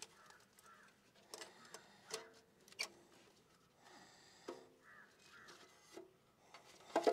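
Oil filter wrench working a spin-on engine oil filter loose: several sharp metallic clicks and knocks with short squeaks between them, the loudest click near the end.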